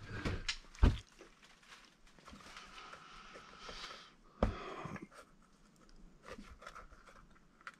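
6Mik Bandit RC buggy tyres on their rims being picked up and squeezed by hand: two dull knocks, about a second in and again just after the middle, as tyres bump against each other or the bench, with soft rubbery rustling and faint taps between them.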